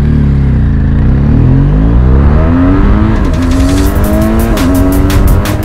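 BMW R1200GS's 1170 cc boxer twin accelerating through the gears, its pitch climbing steadily, dropping back briefly at two quick upshifts about three and four and a half seconds in, then climbing again.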